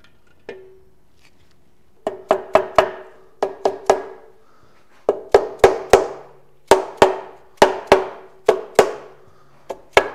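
Mallet strikes on the case of an air-cooled VW Type 1 engine, tapping the freshly mated case halves down together over their studs. About twenty sharp blows come in quick runs of two to four, each with a short metallic ring, starting about two seconds in.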